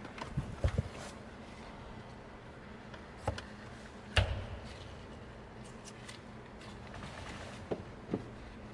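A few scattered light clicks and knocks of car interior parts being handled and fitted during reassembly, with one sharper knock about four seconds in.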